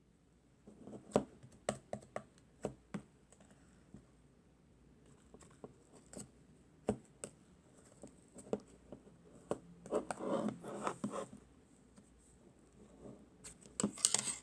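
Hands playing with slime: scattered sharp clicking pops as it is pressed and poked, with a longer stretch of crackling squishing about ten seconds in and another burst near the end.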